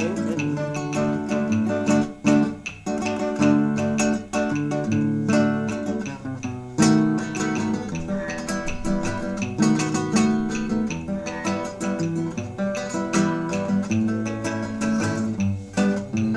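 Instrumental passage of a Cuban song: acoustic guitar plucked and strummed with plucked-string melody over a bass line, no singing.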